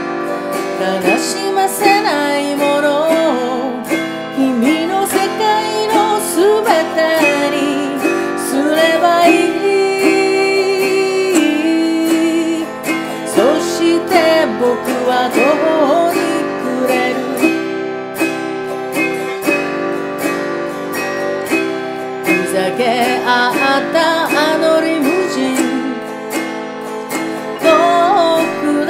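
A woman singing a slow song while strumming chords on a Chromaharp autoharp.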